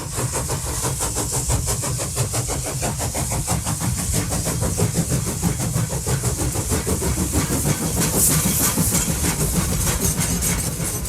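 Locomotive engine sound effect: a steady, rhythmic chugging with a high hiss over it.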